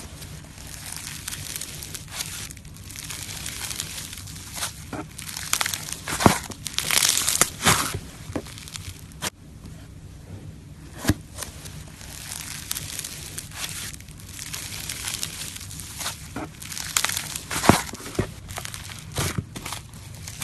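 White slime being stretched and squished, giving continuous crackling with several sharp pops.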